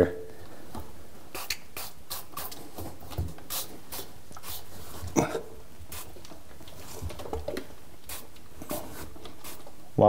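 Trigger spray bottle of mould cleaner being squeezed over and over, giving many short hissing squirts at irregular intervals onto a washer door seal.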